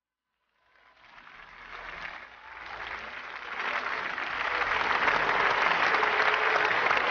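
Audience applause that begins about half a second in and swells to full, steady clapping by about four seconds.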